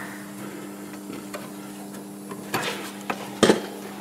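Light metallic clicks and knocks from hand work with tools and parts at a car's rear disc brake, with two sharper knocks near the end, the second the loudest. A steady low hum runs underneath.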